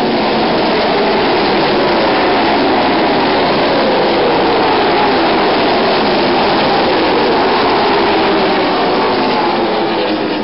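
A pack of ARCA stock cars' V8 engines running together at racing speed on a dirt track, a loud steady drone of many overlapping engines, easing slightly near the end as the field moves off into the turn.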